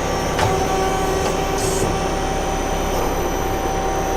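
Nakamura TMC-18 CNC turning center running: a steady mechanical hum with a constant whine, and a few faint clicks early on.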